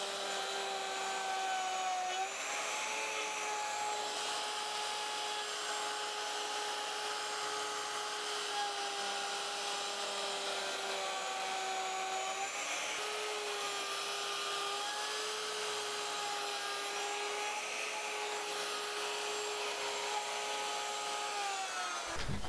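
Plunge router on a router sled running at full speed while its bit surfaces an end-grain cutting board, a steady high whine whose pitch dips slightly a few times.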